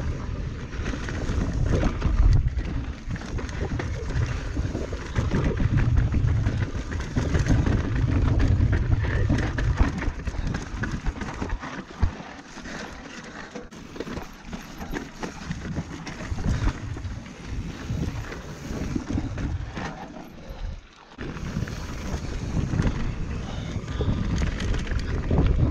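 Mountain bike riding fast down a dirt bike-park trail, heard from a chest-mounted camera: wind buffeting the microphone over a steady rumble of tyres on dirt, with frequent knocks and rattles from the bike over rough ground. The noise eases for several seconds about halfway through, dips sharply for a moment, then builds again.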